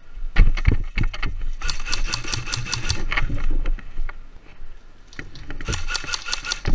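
Electric airsoft AK rifle firing two full-auto bursts, each about a second long, a rapid rattle of shots from its motor-driven gearbox: one about a second and a half in, the other near the end.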